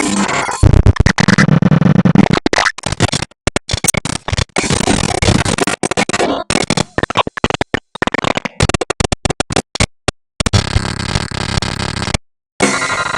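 Black MIDI rendition of a Nokia ringtone: a dense, noisy wall of synthesized notes played at once. It stutters and is cut by several abrupt silences, the longest near the end.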